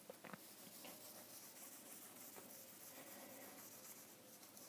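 Faint rubbing of a dry microfiber cloth wiping a smartphone's surface, with a couple of light clicks shortly after the start.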